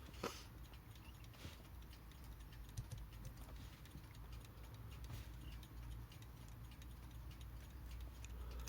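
Haller Beatall mechanical alarm clock movement ticking faintly, with one sharper click just after the start. It is running poorly on a feeble balance swing, which the owner thinks might be down to worn balance cups.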